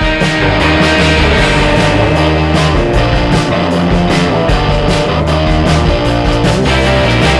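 Background music: rock with guitar and a steady beat.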